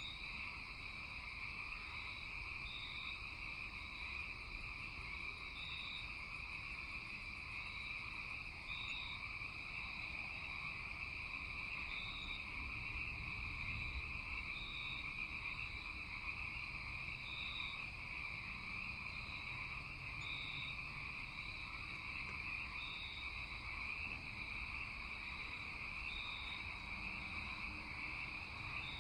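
Night chorus of insects and frogs: a steady high buzzing drone with short chirps repeating every one to three seconds.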